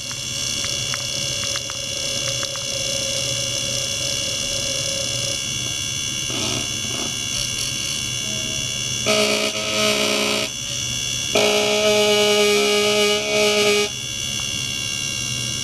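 Electric toothbrush buzzing in two bursts, about nine seconds in for a second and a half and again from about eleven seconds in for two and a half seconds. Under it runs a steady electronic hum and high whine.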